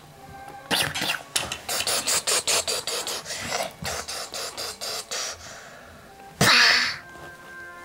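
A child making mouth sound effects for a toy battle: a quick run of short hissing, spitting bursts like gunfire, several a second, then one loud, longer hissing blast like an explosion near the end.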